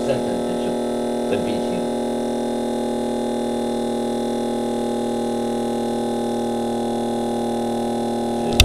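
Small electric motor running on supercapacitors with a steady, even hum made of several tones. A sharp click comes at the very end.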